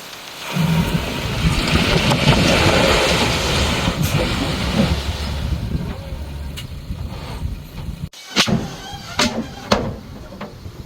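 Komatsu D31P bulldozer's diesel engine working under load, a loud rumble that sets in about half a second in and eases off after the middle. After a brief break near the end come a few sharp metal clanks.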